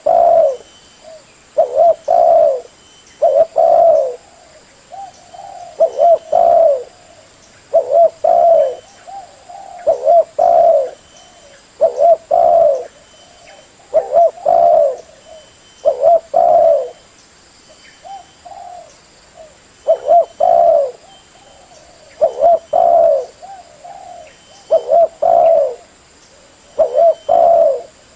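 Spotted dove cooing: loud, short coo phrases repeated in groups about every two seconds, with a steady rhythm.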